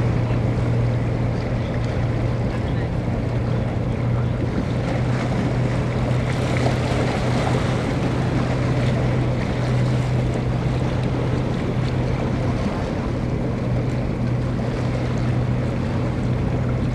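A steady low engine hum that does not change, under wind buffeting the microphone and the wash of water: the ambience of a vessel's engine out on the harbour.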